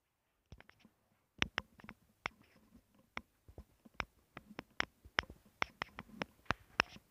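Footsteps on a hardwood floor: irregular sharp clicks and taps, a few a second and sometimes doubled, beginning about half a second in.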